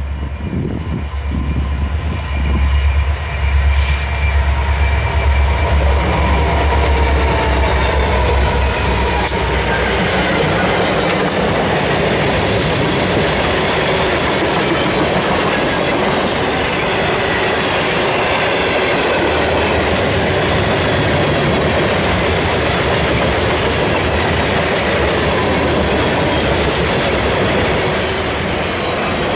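A diesel-hauled freight train passes close by. The locomotives' engines make a deep rumble that swells over the first few seconds and fades after about eight seconds. Then a long string of freight cars rolls past with a steady noise of wheels on rails.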